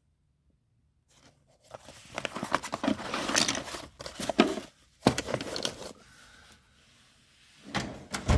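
Rustling, crinkling and light rattling of tools and drawer liner being handled in a metal toolbox drawer, with a single sharp knock about five seconds in, as from a drawer or tool case bumping shut.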